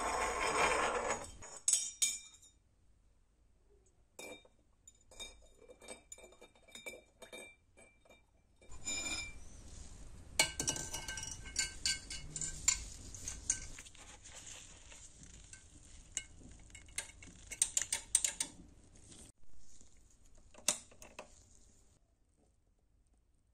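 Small metal pieces hanging on thin wire clink and tap against a drinking glass as they are dipped into water, with scattered handling clicks. There is a short louder noise at the start, and a denser run of clinks from about nine seconds until near the end.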